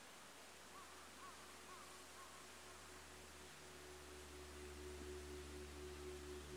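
Very faint ambient music fading in: soft, steady low drone tones that build slowly under a light hiss, with a few faint short chirps in the first couple of seconds.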